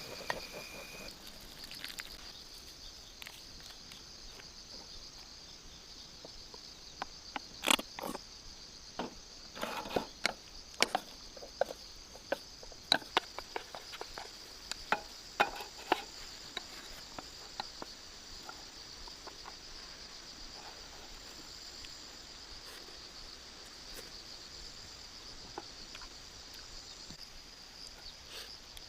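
Steady high-pitched chirring of insects, with a scattered run of sharp clicks and snaps between about seven and sixteen seconds in.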